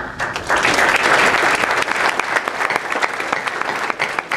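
Audience applauding: many hands clapping together, swelling about half a second in and thinning a little toward the end.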